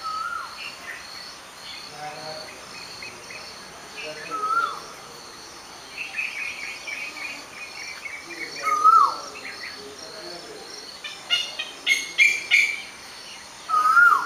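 Birds calling outdoors: one bird repeats a short whistled call that rises then drops, about every four to five seconds. Other birds give quick runs of chirps around the middle and near the end, over a steady pulsing chirr of insects.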